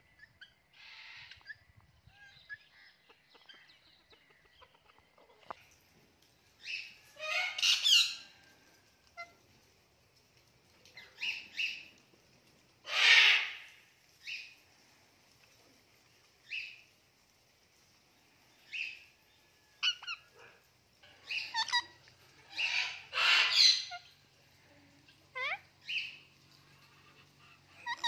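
Alexandrine and Indian ringneck parakeets calling: short chirps and squawks, some sliding in pitch, coming one at a time at irregular intervals with quiet gaps between. The loudest is a harsh squawk about halfway through.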